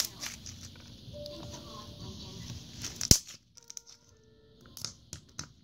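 Green slime being squished and poked by hand, making soft wet clicks and crackles, with one sharp loud click about three seconds in. Faint music plays underneath.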